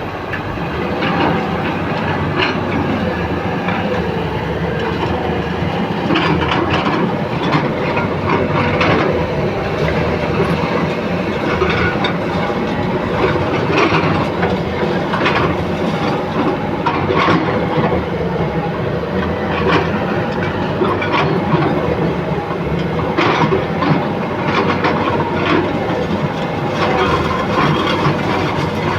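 Loud, continuous mechanical rumble with irregular clanks and rattles.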